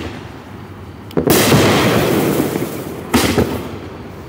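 Black Cat 'Kingdom' 16-shot firework cake firing two shots, about a second in and near the end. Each is a sharp bang followed by a second or more of crackling.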